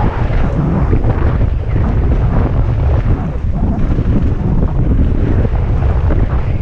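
Wind buffeting an action camera's microphone as a mountain bike descends a dirt trail at speed, over the steady rumble and crackle of tyres rolling on packed dirt and gravel.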